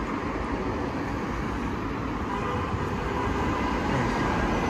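Steady road traffic noise from cars passing on a multi-lane city road, growing slightly louder toward the end.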